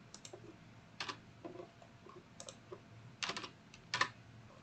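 Computer keyboard keystrokes: a few separate taps, then a quick run of several keys about three seconds in and one more firm tap just after.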